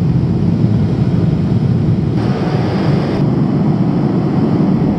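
Jet airliner engines heard from inside the cabin: a loud, steady low rumble, with a brighter hiss added for about a second some two seconds in.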